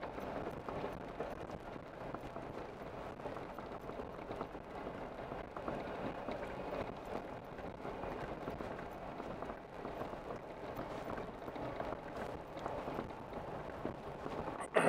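Off-road vehicle crawling slowly up a rocky mountain track, its tyres crunching over gravel and embedded rock with a steady patter of small clicks and rattles, and a sharper knock near the end.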